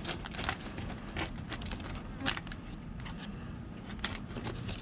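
Irregular small clicks and taps of food and eating utensils being handled during a first bite, over a low steady rumble.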